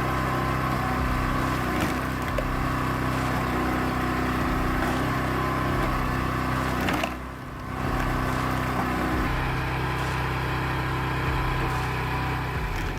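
Engine of a hydraulic log splitter running at a steady pitch, dropping away briefly about seven seconds in.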